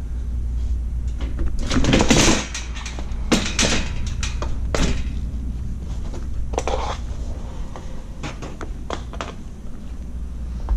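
Clanks and rattles of a metal electric hospital bed frame being pushed down and lifted to free it from its end section, with a cluster of knocks in the first half and a few more later.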